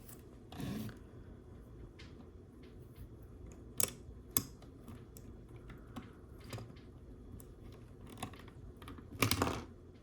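Small plastic LEGO bricks clicking and rattling as they are handled and pressed together, with two sharp clicks about four seconds in. A louder plastic clatter near the end as the car's rear wing is knocked off the model.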